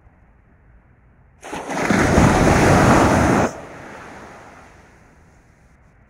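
Waves washing onto a sandy beach in the wind. About a second and a half in, a loud rush of noise starts abruptly, lasts about two seconds and cuts off sharply, then the surf fades back to a low hiss.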